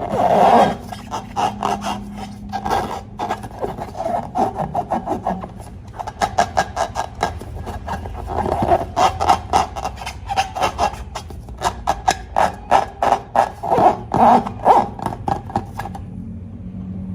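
Slime being squished and stretched by hand, making rapid crackly clicks and squelches in quick runs, stopping near the end.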